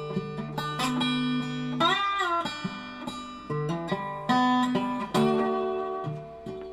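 Intro music: plucked acoustic guitar playing sustained notes, with a sliding bend about two seconds in.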